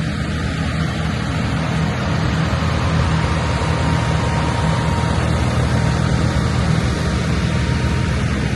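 Diesel engines of JCB backhoe loaders idling steadily, a constant low engine sound.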